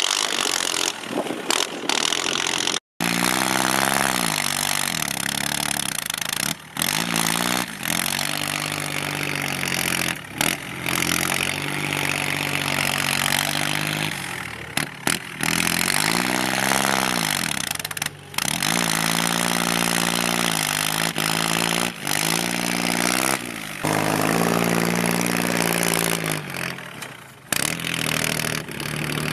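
Kubota tractor's diesel engine, fitted with a loud aftermarket exhaust, working hard. Its pitch rises and falls again and again as the throttle is opened and eased, and the sound breaks off abruptly several times.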